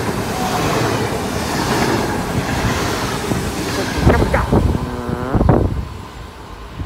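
NS VIRM double-deck electric train running past along the platform: a loud, steady rush of wheels and air that falls away about four seconds in as the last coach goes by. After it come a few low, gusty thumps and a brief pitched sound.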